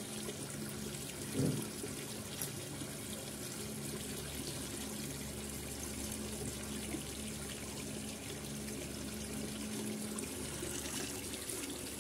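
Steady trickling, running-water noise with a low steady hum beneath it; a single dull thump about a second and a half in.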